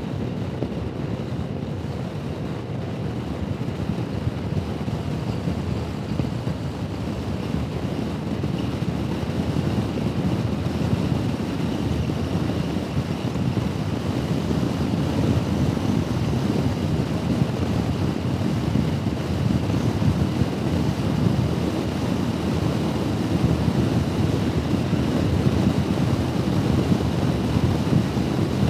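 Wind rushing over a helmet-mounted microphone while riding a Honda Forza 125 scooter, with its single-cylinder engine and road noise underneath. The rush grows gradually louder as the scooter gathers speed.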